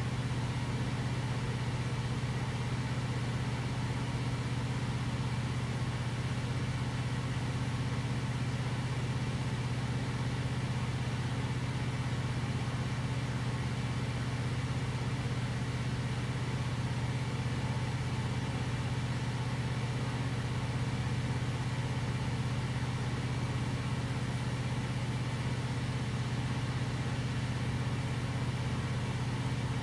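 Steady low machine hum, unchanging throughout, with most of its weight in a low drone.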